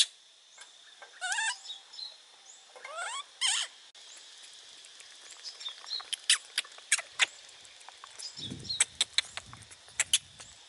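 Baby monkey giving a few short, high squeaks that slide up and down in pitch, followed by a run of sharp clicks and crackles as it moves about in the tree.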